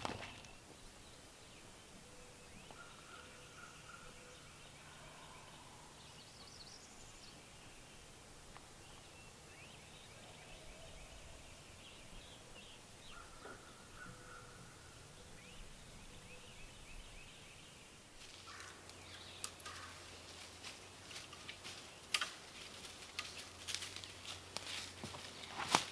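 Quiet outdoor background with scattered short bird calls. About two-thirds of the way through it changes to a run of sharp clicks and crackles, like rustling in dry leaves, over a low steady hum.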